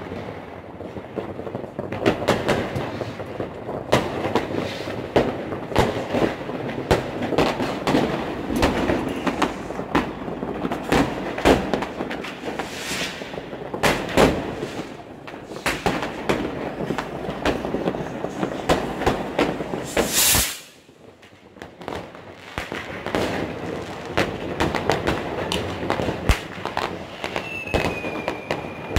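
Dense New Year's Eve fireworks: firecrackers and rockets going off one after another in a constant crackle of bangs. Close by, a firework hisses loudly twice. The second hiss, about twenty seconds in, cuts off suddenly. A short falling whistle comes near the end.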